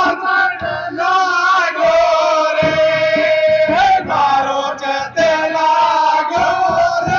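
A jas, a devotional folk song to the Mother Goddess, sung by voices with music. About two and a half seconds in, the singing holds one long note for a little over a second before moving on.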